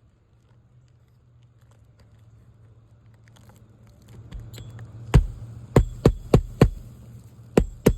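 Roofing nails being hammered through a replacement asphalt shingle: two groups of sharp strikes starting about five seconds in, the blows coming quicker as each nail is driven home, over a steady low hum.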